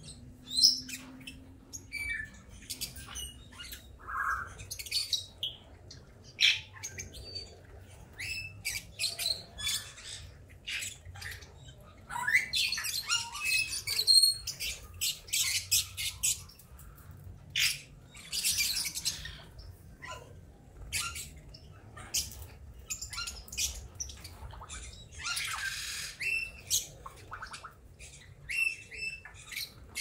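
A flock of small caged parrots chattering: many short chirps and squawks, growing busier with clusters of overlapping calls about halfway through and again near the end.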